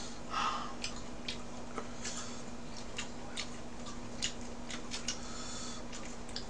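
Chopsticks clicking and tapping against plates and dishes at an uneven pace, with soft eating sounds in between, over a low steady hum.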